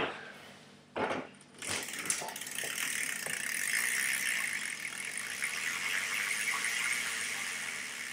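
Two knocks about a second apart, then a steady whirring rattle that starts nearly two seconds in and keeps going: a BMX bike's wheel and chain spinning freely.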